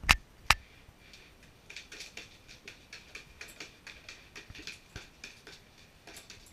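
Two sharp knocks near the start, then a dog lapping at a water bowl inside a plastic tub, a fast even run of small wet clicks, several a second.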